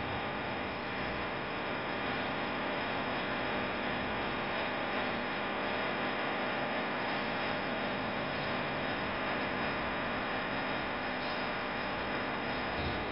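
Electric potter's wheel running at a steady speed while a clay bottle is thrown on it: a constant motor hum with hiss that holds even throughout.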